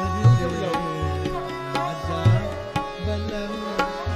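Tabla playing a steady cycle, its deep bass-drum strokes landing about once a second among sharper treble strokes, under sustained melodic accompaniment in a thumri in Raag Bhairavi.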